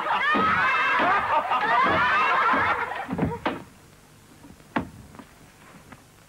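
Several high voices laughing and giggling together, stopping about three seconds in. A few light knocks follow, one sharper than the rest near the end.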